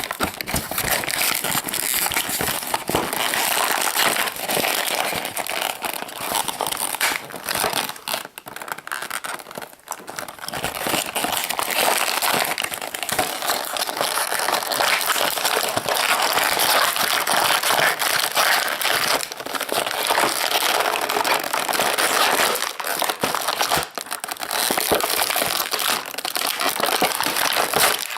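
Plastic toy packaging crinkling and crackling continuously as it is handled and opened by hand, with a couple of brief pauses partway through.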